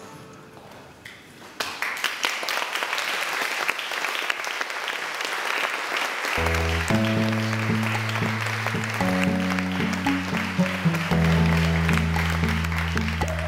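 Audience applause that breaks out about two seconds in as the music fades away. About six seconds in, music with long held low chords comes in under the clapping.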